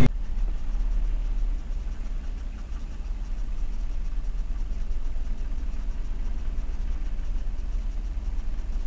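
Low, steady rumble of a stationary car's idling engine, heard from inside the cabin through a dashcam microphone.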